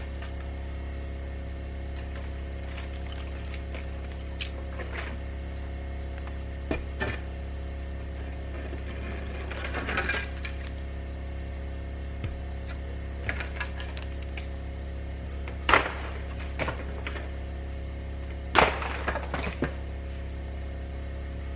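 Scattered knocks, scrapes and thuds of snow and ice being broken and cleared off a metal roof, over a steady low hum. The two loudest thuds come in the second half, each followed by a short clatter.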